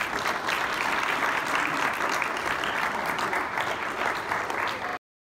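Audience applauding, a dense, steady clapping that cuts off suddenly about five seconds in.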